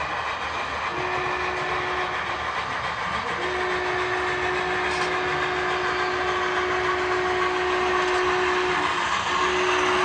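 Sound-equipped model locomotive's horn sounding over a steady running rumble: a short blast about a second in, a long blast of about five seconds, and another blast starting near the end.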